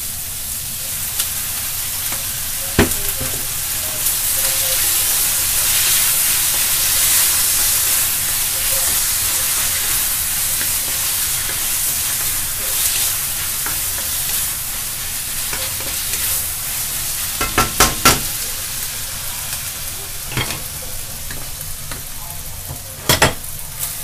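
Onions and sliced meat sizzling in an iron wok over a gas flame as they are stir-fried with a wooden spatula: a steady sizzle, loudest several seconds in, with sharp knocks of the spatula against the wok, a quick cluster of them about three-quarters of the way through and another near the end.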